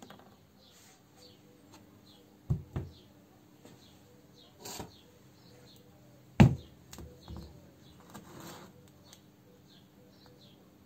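A handful of sharp knocks and clatters, the loudest about six and a half seconds in, with small birds chirping faintly throughout.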